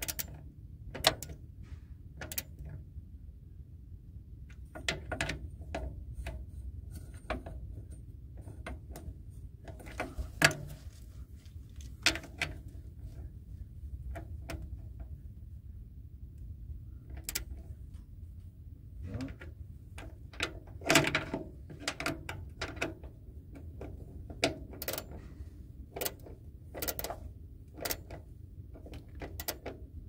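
Small socket ratchet clicking in short irregular runs, with light metal knocks, as it snugs down the cap screws on a Ford E350's fuel tank selector valve.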